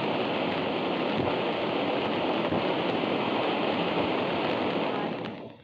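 Consumer firework fountain spraying sparks with a steady hiss that stops suddenly near the end as it burns out.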